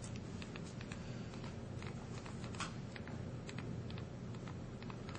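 Thumb-typing on a BlackBerry's physical QWERTY keypad: a run of faint, irregularly spaced little key clicks as a short note is typed.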